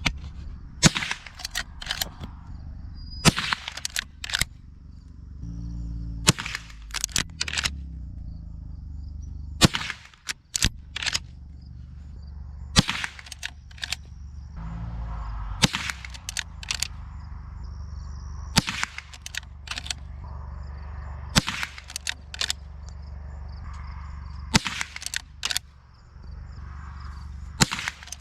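Henry Golden Boy .22 lever-action rifle firing about ten slow, single shots, one roughly every three seconds. Each shot is followed by a few quick metallic clicks as the lever is worked to eject the case and chamber the next round.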